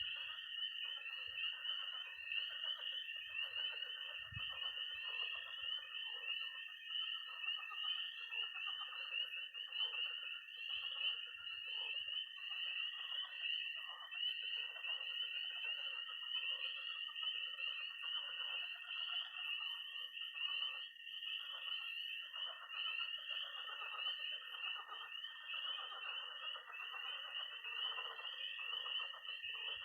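Early-spring night chorus of frogs and toads: a dense, continuous peeping of spring peepers, a steady unbroken high-pitched trill of toads, and many lower croaking calls of pond frogs layered beneath.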